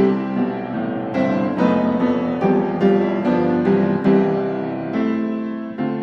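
Background piano music, single notes and chords struck about twice a second, each ringing and fading.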